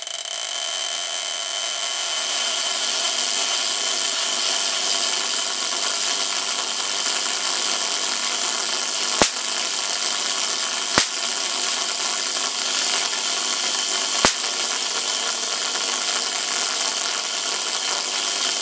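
High-voltage flare corona discharge from a row of blade edges to a metal plate, pulsed by a series spark gap: a loud, steady hissing buzz from the firing spark gap and corona, with three sharp clicks of spark breakdowns about nine, eleven and fourteen seconds in.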